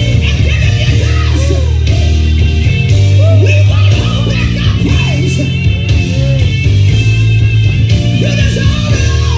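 Live gospel worship music: a church band with heavy bass and sustained chords, with voices singing out over it in long, bending lines.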